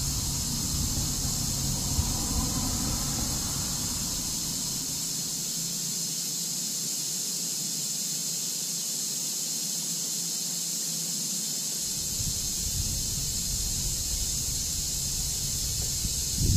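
Steady high-pitched hiss with no distinct knocks or work sounds.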